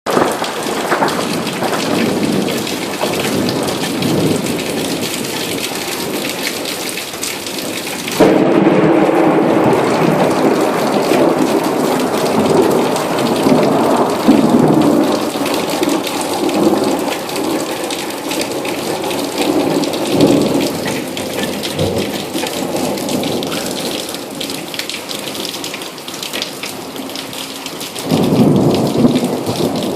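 Thunderstorm: heavy rain falling steadily, with thunder. About eight seconds in a loud clap of thunder breaks and rumbles on for many seconds, slowly easing, and another swell of thunder comes near the end.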